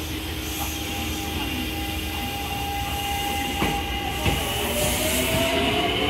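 Senboku Rapid Railway 5000 series electric train pulling away from the platform: its VVVF inverter and traction motors whine in tones that climb steadily in pitch as it gathers speed. A few wheel knocks come over rail joints about four seconds in.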